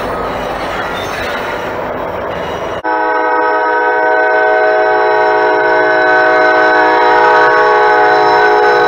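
Noise of a train passing on the rails for about three seconds, then the sound cuts abruptly to a diesel locomotive's multi-chime air horn blowing one long steady chord that grows a little louder.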